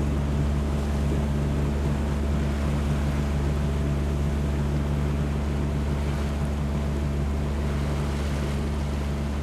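A boat's engine running steadily with a constant low drone, over the wash of water and some wind.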